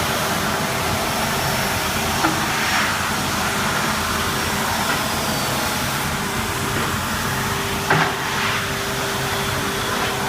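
Wide belt sander running with a steady whirring noise and a constant hum, broken by two short knocks, the second one louder.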